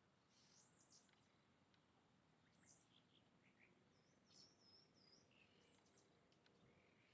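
Faint calls of several small birds: scattered short, high chirps, with a brief warbling phrase about four seconds in, over a quiet background hiss.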